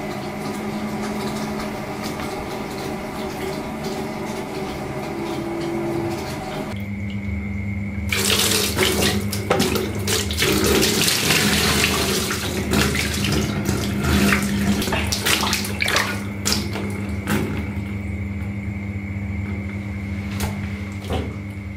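Shower-hose water spraying and splashing in a plastic bucket while a cat is bathed, loud from about 8 seconds in and easing after about 16 seconds into scattered splashes and drips. A steady hum with held tones runs underneath.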